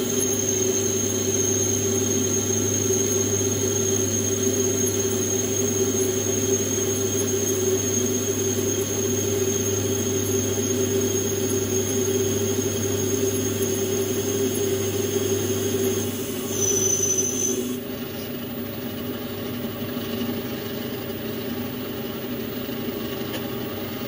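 Metal lathe turning down a steel tube, the cutting tool giving a steady high-pitched squeal over the hum of the running lathe. About 16 seconds in the squeal shifts briefly and stops as the cut ends, and the lathe runs on more quietly.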